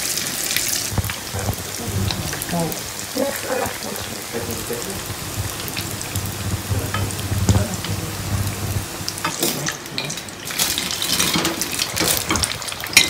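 Samosas deep-frying in a pan of hot oil: a steady sizzle with fine crackling, over a low hum. Near the end come louder, sharper crackles and clicks as a fried samosa's crisp pastry is cut on a plate.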